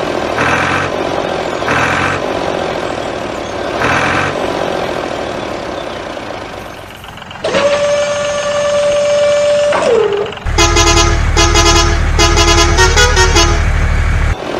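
Added vehicle sound effects: after a sound repeating about every two seconds, a long horn blast of about two and a half seconds that sags in pitch as it stops, then a heavy engine running loudly under a string of short horn toots.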